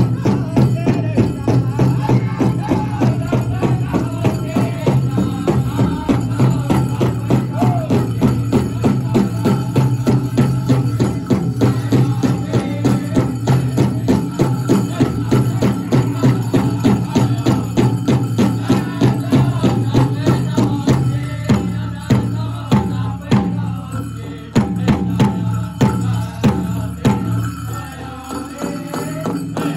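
Pow wow drum group singing a chicken dance song, voices over a steady, fast drumbeat. The music drops a little in level for a stretch about two-thirds of the way through.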